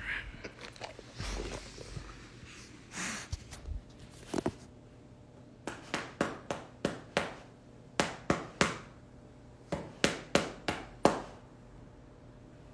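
Rustling and shuffling as a golden retriever climbs onto a person lying on the floor and settles against him. This is followed by three quick runs of short, sharp smacks, about a dozen in all.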